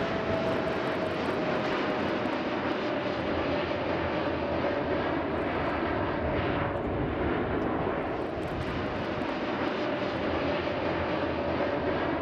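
Jet airliner engines running in flight, a steady rushing roar with a thin whine that slowly falls in pitch.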